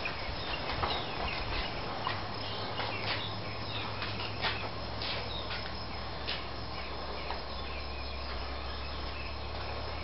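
Outdoor background ambience: scattered short, high chirps from birds or insects over a steady low hum.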